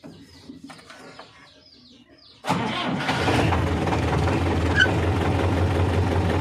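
Belarus 520 tractor's diesel engine started on its electric self-starter, heard from inside the cab. It catches suddenly about two and a half seconds in and then runs steadily at idle with a low, even drone.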